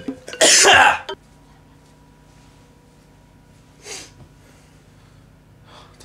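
One short, forceful sneeze-like burst of breath from a man tickling his nose with a tissue to bring on a sneeze, with no full sneeze coming out. A much fainter short puff follows near the middle.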